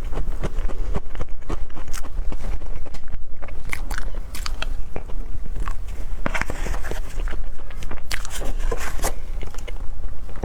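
Close-miked eating: a person biting and chewing soft dessert, with many short wet clicks and crackles, over a steady low hum.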